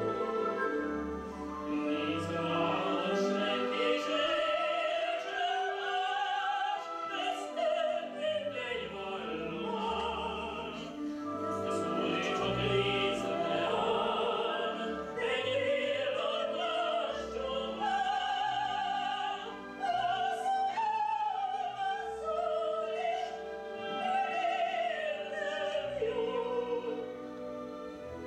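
Operetta singing with orchestral accompaniment: a voice carries a melody with long held notes over a string-led orchestra.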